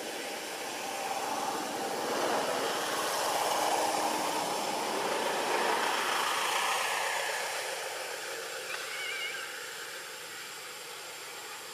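A vehicle passing by out of sight: a rushing noise swells over a few seconds, then fades away. A brief high chirp comes near the end.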